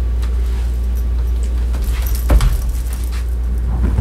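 Faint clinking of metal scale mail and chainmail as the wearer moves, over a steady low hum. A short louder sound comes a little after two seconds in, and a brief rising sound near the end.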